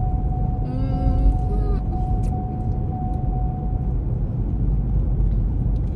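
Car cabin noise while driving: a steady deep rumble of engine and road. A brief voice-like sound comes about a second in, and a faint steady tone stops about four seconds in.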